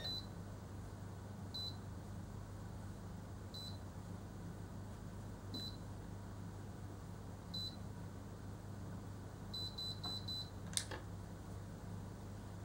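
Automatic hair curler's timer beeping once every two seconds while a strand of hair is held in the heated chamber, then four quick beeps signalling the curl is done, followed by a sharp click as the curler is released.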